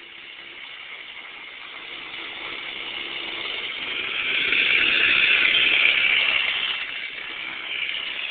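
Kid kart's small engine running as the kart drives toward the camera, passes close by about five seconds in, and pulls away, getting louder and then fading.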